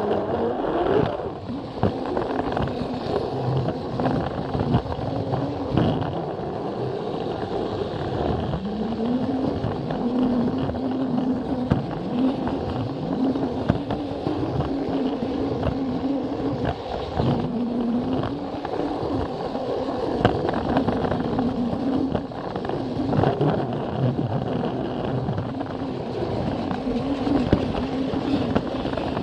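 Battery-powered Plarail toy train running on plastic track: its small electric motor and gears give a steady whine that sags and recovers now and then, with wheels clicking and rattling over the track joints.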